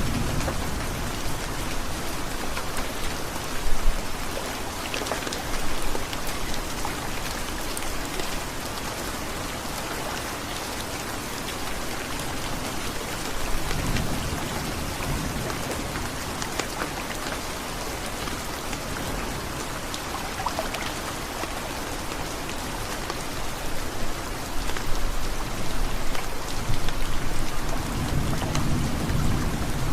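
Heavy rain falling steadily, with low rumbles of thunder swelling about halfway through and again near the end.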